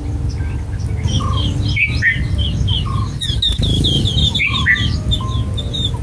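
Relaxation background track of bird chirping: many short, high chirps with a quick run of chirps in the middle, over a steady low rumble.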